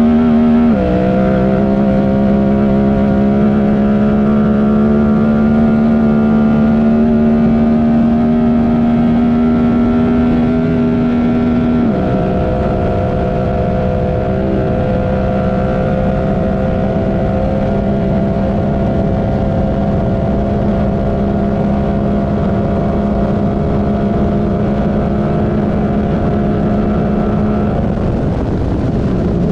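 Honda Talon UTV's 999 cc parallel-twin engine running hard at high, steady revs. Its pitch drops sharply about a second in, climbs slowly, drops again around twelve seconds in, then holds nearly level.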